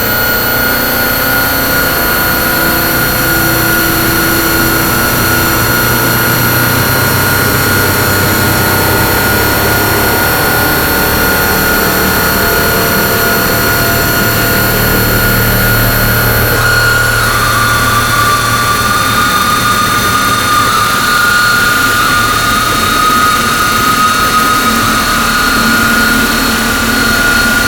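Harsh-noise drone from DIY synthesizers run through distortion pedals: a dense, loud, unbroken wall of noise with steady whistling tones held over a low rumble. About two-thirds of the way through, the texture shifts and one high tone steps down in pitch.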